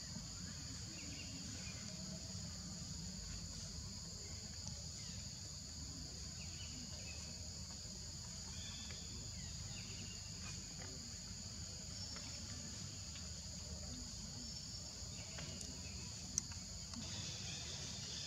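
Insects droning steadily at a high pitch in forest, over a low background rumble, with a few faint short chirps and one sharp click near the end.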